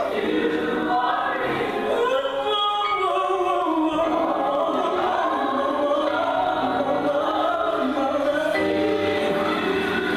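Gospel song with a choir singing, playing steadily.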